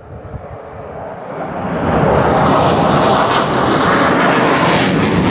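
Sukhoi Su-35 fighter jet flying low overhead on afterburner: its roar swells over about two seconds, then holds loud and steady.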